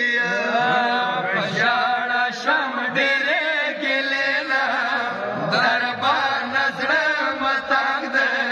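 A man's voice chanting a Pashto noha, a Shia mourning lament, in a slow, ornamented melody over a steady drone.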